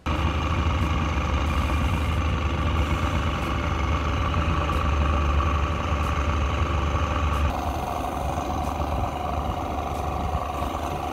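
Boat outboard motor running steadily, the boat under way. Its tone shifts slightly about seven seconds in.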